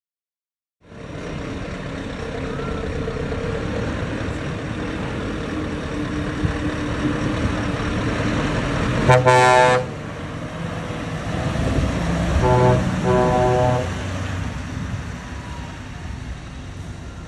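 Model truck sound modules: a steady diesel-engine drone, with one air-horn blast about nine seconds in and two short horn toots about three seconds later.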